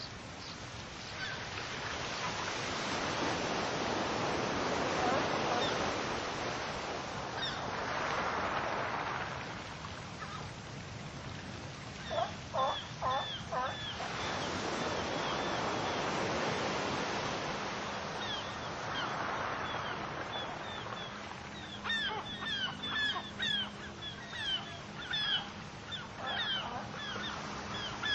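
Waves washing onto a beach, the surf swelling and ebbing every few seconds. A quick run of loud bird calls comes about twelve seconds in, and many short, high bird calls overlap the surf near the end.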